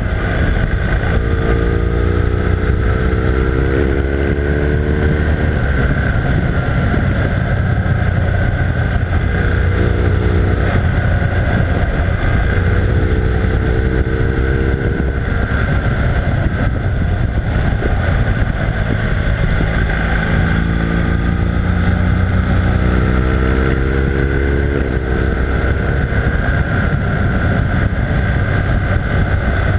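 BMW R1200R LC's liquid-cooled boxer twin engine running at road speed, rising in pitch as it accelerates and falling back a few times, over a steady rush of wind.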